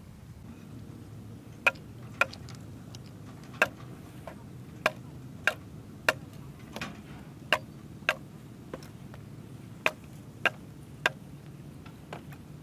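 A large knife hacking into a bamboo pole: about a dozen sharp, separate chops, often in pairs about half a second apart, over a low steady background noise.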